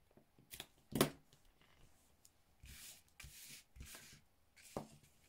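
Hands working white cardstock and tape on a table. There are two sharp clicks in the first second, the second the loudest, then three short papery swishes about two to four seconds in, and a soft click near the end.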